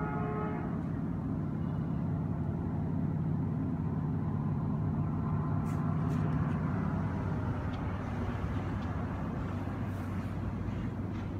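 The end of a Caltrain diesel locomotive's multi-note air horn, dying away in the first second. Then the locomotive's engine drones steadily as the train approaches the station, its note dropping lower about seven seconds in.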